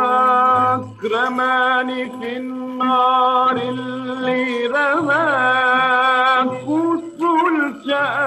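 Arabic dor music: one melodic line holding long notes with wavering turns, over a low accompaniment that comes and goes in short blocks.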